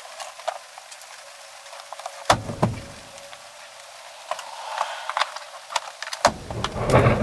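Scattered knocks and clicks of someone climbing out of an SUV's cargo area and moving around the vehicle, over a steady hiss, with a louder run of knocks near the end.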